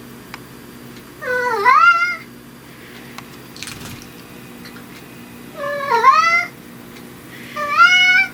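Domestic cat meowing three times, each call dipping and then rising in pitch; the first two are about four seconds apart and the last follows soon after.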